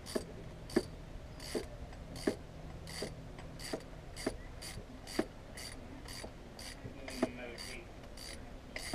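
Socket ratchet wrench clicking as it is swung back and forth on a bolt in a car's engine bay during an alternator replacement, about one or two sharp clicks a second.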